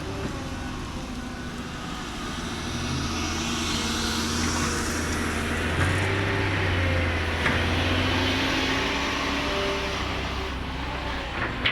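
Heavy diesel earthmoving machinery running, with a steady low engine hum and a rushing hiss. It grows louder for several seconds in the middle, then eases off, with a few sharp knocks near the end.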